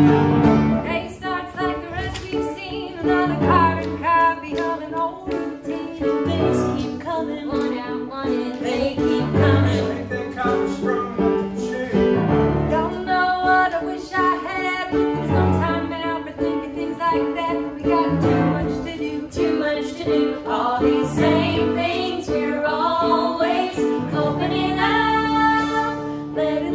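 Musical-theatre cast singing a show tune together, women's voices to the fore, over an instrumental accompaniment with a steady, regular beat.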